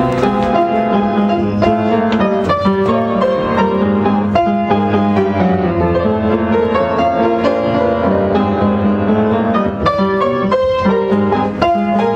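Upright piano being played, a steady stream of notes and chords that stops abruptly at the end.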